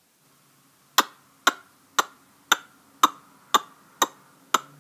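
Regular sharp ticks, two a second, starting about a second in.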